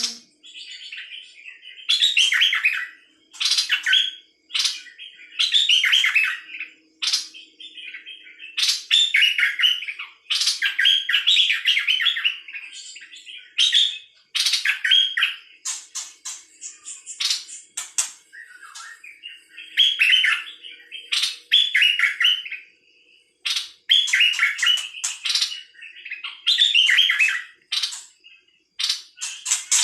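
A songbird singing loud, rapid whistled phrases, each about a second long, repeated again and again with short pauses between.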